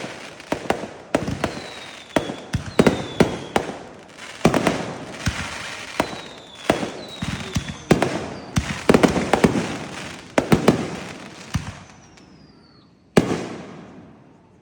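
Fireworks going off in rapid volleys of sharp bangs and crackle, with a few short falling whistles. One last loud bang comes about 13 seconds in and dies away.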